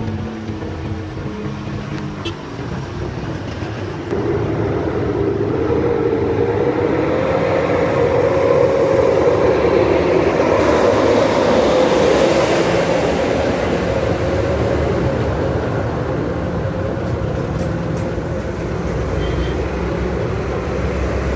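Heavy lorry's diesel engine running as the lorry comes round a hairpin bend and passes close by, growing loud about four seconds in, with a steady drone that rises a little in pitch, loudest around the middle, then easing off. Before that, quieter engine and road noise from inside a moving vehicle's cab.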